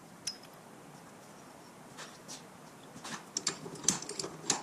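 Light metal-on-metal clicks and clinks as a turned metal hub and a metal disc are handled, fitted together and set in a bench vise: a few scattered clicks, coming thicker and louder in the last second and a half.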